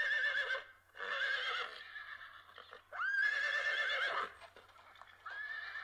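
Horse whinnying, four calls of about a second each with a quavering pitch and short pauses between them.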